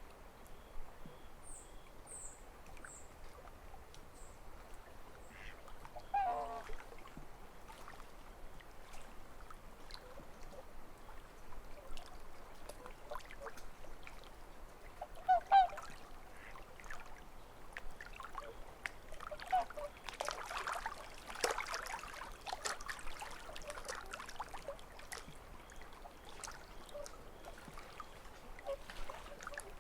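Small ripples lap at a lakeshore, with the lapping busiest a little after the middle. Waterfowl honk twice: once about six seconds in, and louder about halfway through. Faint high chirps of a small bird come near the start.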